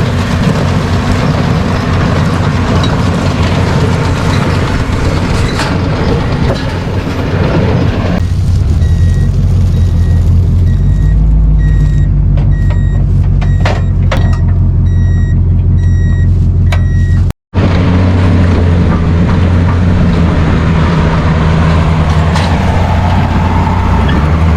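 Heavy farm machinery engine running hard and loud. Partway through, the engine sound drops lower and a row of short high beeps sounds about twice a second for several seconds, with a few sharp clicks. Then the heavy engine sound returns.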